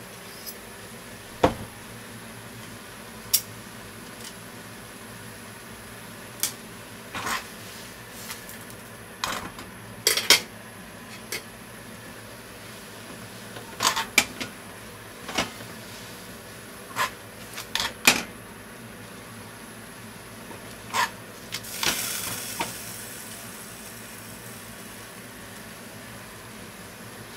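Spaghetti and clams being tossed and stirred in a metal frying pan: scattered clinks and knocks of a silicone spatula and clams against the pan, with a brief hissing splash about three-quarters of the way through, over a steady low hum.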